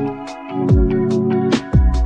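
Background music with an electronic beat: deep kick drums that drop in pitch, sharp snare and hi-hat hits, and sustained synth chords.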